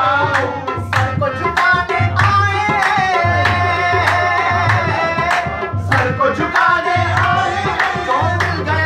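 Qawwali: a man singing a melismatic line to harmonium accompaniment, with a steady rhythm of sharp percussion strokes.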